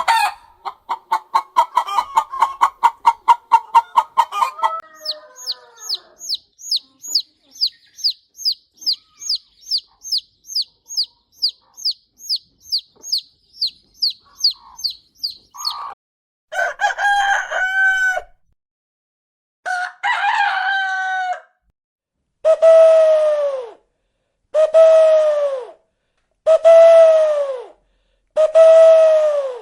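A sequence of bird calls of several kinds. First a fast, rattling run of notes for about five seconds, then a long series of short, high chirps about two and a half a second. Then six loud, drawn-out calls; the last four are alike, each about a second and a half long, rising and falling in pitch.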